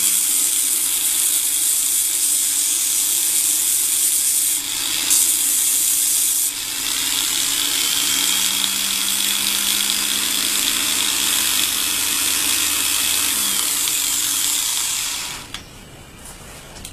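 Electric angle grinder with a sanding disc running steadily at speed. About fifteen seconds in it is switched off and its noise falls away quickly.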